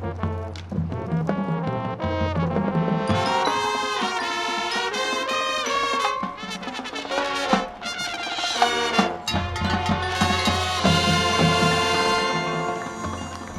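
Marching band playing, with trumpets and trombones over bass notes and drums; the brass gets fuller and louder about three seconds in.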